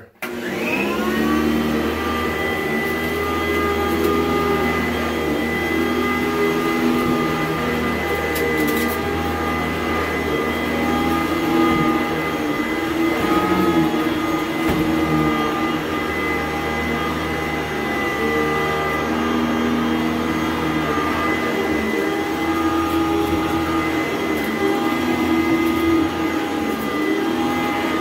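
Sanitaire SC899 commercial upright vacuum cleaner switched on, its motor spinning up to speed with a rising whine, then running steadily while being pushed over carpet.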